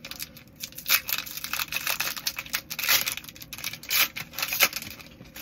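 Foil wrapper of a Disney Lorcana booster pack being torn open and crinkled by hand, in a string of sharp rips and rustles.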